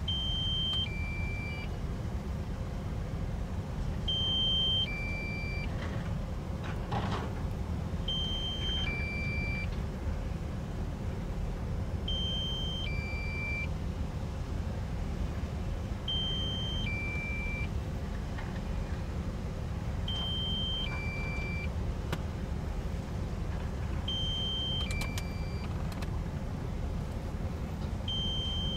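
A Kobelco SK260LC excavator's diesel engine running steadily under a low rumble while it digs. Over it, a two-tone electronic warning beep, a higher note then a lower one, repeats about every four seconds.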